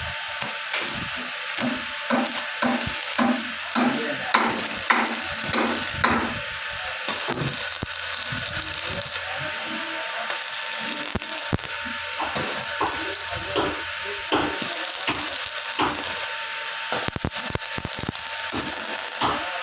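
Irregular clicks and knocks of metal work over a steady hiss, with a faint steady hum. The knocks come thickest in the first few seconds and again near the end.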